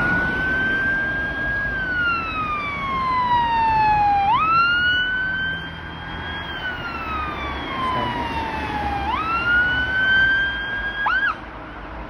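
Emergency vehicle siren on a slow wail: each cycle jumps up quickly, holds, then slides down over a couple of seconds. Near the end it gives a short, quick chirp and cuts off.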